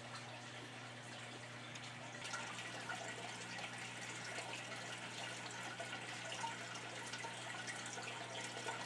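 Aquarium filter water trickling and splashing over a steady low hum; the trickling gets busier about two seconds in.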